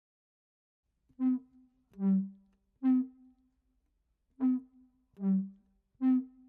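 Background music: a simple tune of short horn-like notes, played in two phrases of three notes each after a second of silence.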